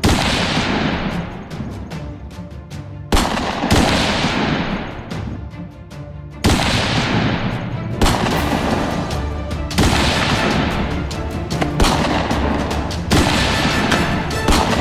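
Dubbed cinematic gunshot sound effects: about eight heavy shots spaced one to three seconds apart, each with a long fading tail, over background music.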